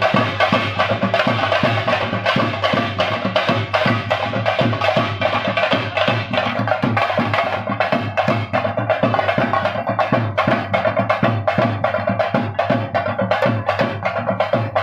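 Fast, steady drumming with sticks, many sharp strokes a second, over a continuous droning tone.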